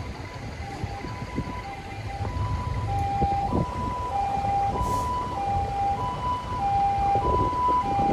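A two-tone siren alternating steadily between a higher and a lower note, each held about two-thirds of a second, the pi-po pattern of a Japanese ambulance, over the low rumble of trucks in traffic. A short hiss about five seconds in.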